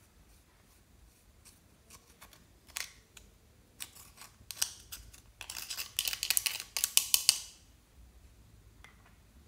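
Thin metal tool scraping and breaking up pressed eyeshadow in a plastic compact pan: a few scattered scratchy clicks, then about two seconds of dense crackly scraping, the loudest part, which stops well before the end.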